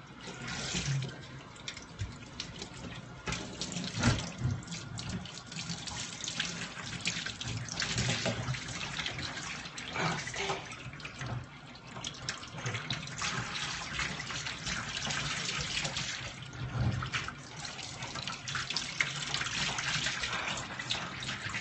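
Kitchen sink tap running as a miniature schnauzer is rinsed under it, the water splashing unevenly over the dog's wet coat and hands into a stainless steel sink.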